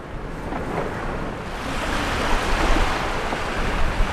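Sea waves washing against the shore, with wind buffeting the microphone; the surf grows louder about a second and a half in.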